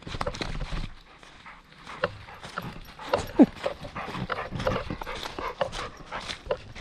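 Footsteps on a snowy trail throughout, with a dog giving one short falling whine about three and a half seconds in.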